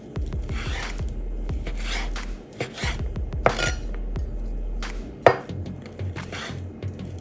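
Chef's knife slicing cooked beef tongue into strips on a wooden cutting board: a run of soft cuts, each ending with the blade knocking on the board. The two loudest knocks come about three and a half and five seconds in.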